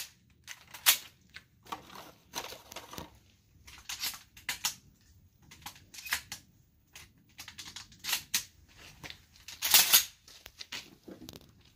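Scattered clicks and plastic-and-metal clatter from handling a Mossberg 500 pump-action 12 gauge and 12 gauge slug shells from a plastic ammo box, with a louder clack near the end.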